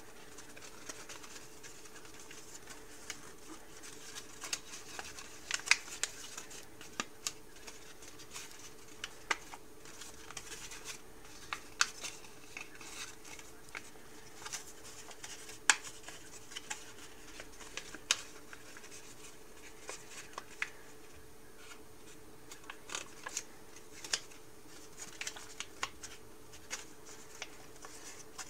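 A sheet of origami paper crinkling and crackling as it is folded and creased by hand: irregular sharp crackles, a few much louder than the rest.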